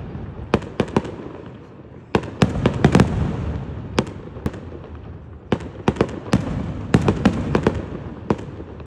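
Aerial fireworks going off, with clusters of sharp bangs in quick succession over a continuous rumble and echo from the shells.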